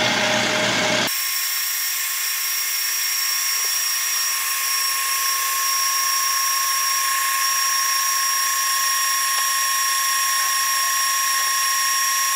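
Electric stand mixer running, its motor whining steadily as the wire whisk beats egg whites with sugar into meringue in a stainless steel bowl. About a second in, the sound changes abruptly to a thinner, high-pitched steady whine.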